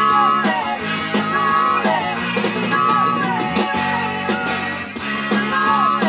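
A rock and roll record playing from a vinyl single on a turntable: continuous music with guitar and a singing voice.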